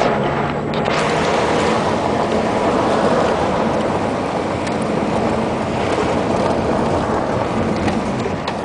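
An off-road vehicle driving, its engine a low steady hum under a loud rush of wind and tyre noise.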